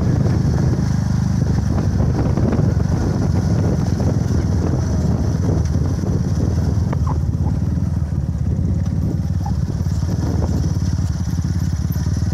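Motorcycle engine running steadily at cruising speed, heard from the pillion seat of the moving motorcycle, with a low even drone and road and wind noise.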